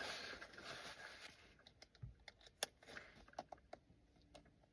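A backpack being put on: a soft rustle of fabric that fades out, then scattered light clicks and taps from its straps and buckles.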